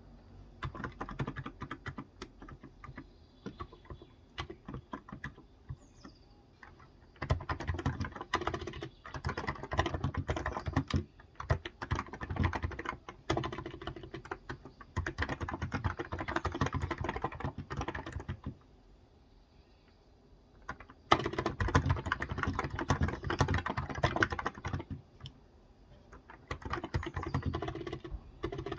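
Typing on a Cox Endeavour electrostatic capacitive tenkeyless keyboard with light 35 g keys: quick runs of key strokes in bursts, with a pause of about two seconds partway through.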